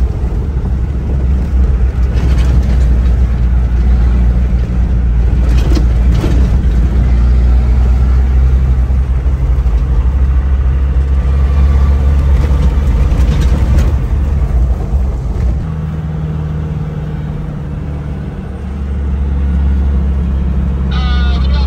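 Land Rover Discovery 200Tdi turbo-diesel four-cylinder running under way, heard from inside the cab as a steady low drone with road noise and a few knocks over the rough dirt road. The drone drops about two-thirds of the way through and picks up again shortly after.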